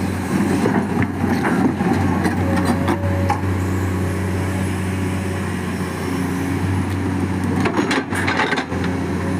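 Excavator's diesel engine running steadily, with a few knocks in the first couple of seconds and a short burst of clatter about eight seconds in.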